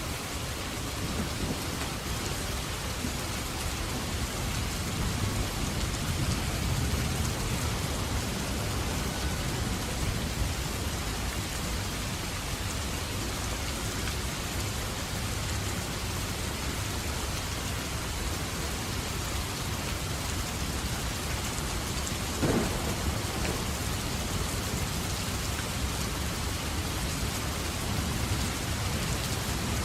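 Steady rain falling, with thunder rumbling low underneath that swells at times and builds near the end. One brief, sharp crack about three-quarters of the way through.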